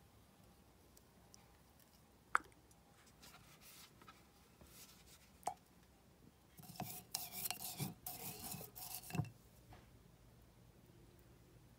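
Handling a glass jar of dried rose petals and oil: a few faint clicks, then about two and a half seconds of scraping and rubbing with dull knocks.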